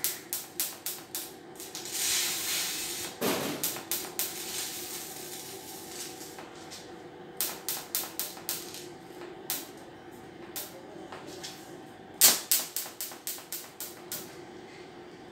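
TIG (argon arc) welding on stainless steel tube: the arc ticks sharply in quick runs of about three a second, each run a few seconds long, with a short hiss about two seconds in. A faint steady hum runs underneath.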